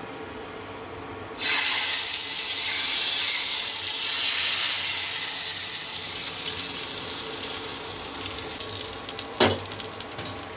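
Tadka of hot oil and fried dried red chillies poured into spinach curry, setting off a loud sizzle about a second in that slowly dies away. A single sharp knock near the end.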